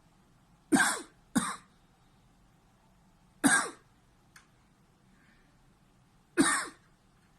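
A man coughing four times: two quick coughs, then two single coughs a few seconds apart. It is a reflex cough set off by pressure on a schwannoma of the right vagus nerve in his neck.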